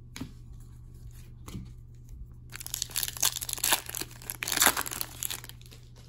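Trading-card pack foil and cards being handled: a dense crinkling, tearing rustle that starts about two and a half seconds in and lasts nearly three seconds, after a few faint ticks.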